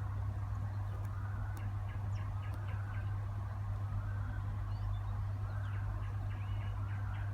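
A steady low hum, with faint short bird chirps scattered through it.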